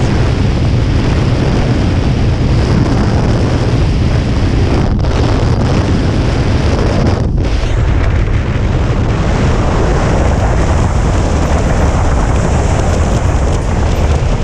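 Loud wind buffeting the camera's microphone from the fast airflow of a tandem paraglider turning through a SAT. It is steady throughout, with two brief dips about five and seven seconds in.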